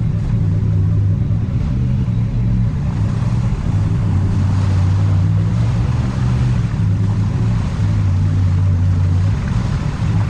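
Side-by-side UTV engine running at a steady drone while driving, with a rushing haze of noise over it.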